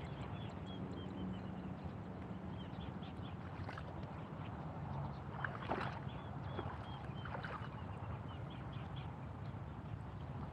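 Outdoor ambience of a flooded rice paddy: a steady low rumble, small birds giving short high chirps in quick runs, and a louder burst of water sloshing about halfway through.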